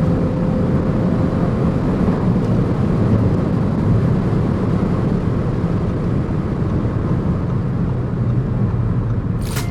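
Audi S5 Sportback cruising at speed: a steady, loud low rumble of engine, tyre and wind noise, with no revving or gear changes.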